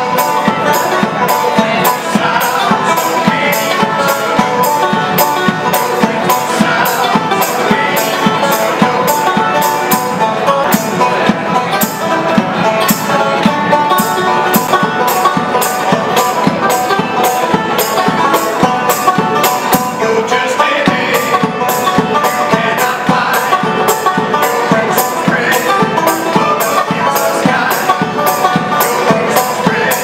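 Five-string banjo played fast and continuously, over a steady beat of sharp jingling percussion.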